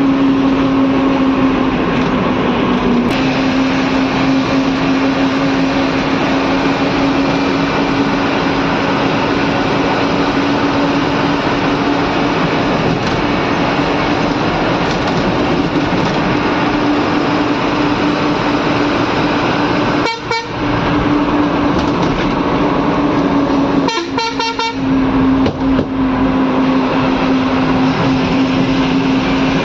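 A bus under way, heard from inside the driver's cab: engine and road noise with a steady, even hum held throughout. The sound briefly drops out about two-thirds of the way through and again a few seconds later.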